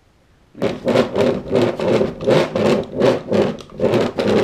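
Toy monster truck's paint-covered tyres rubbed back and forth over paper on a wooden easel, a regular scrubbing at about three strokes a second, starting about half a second in.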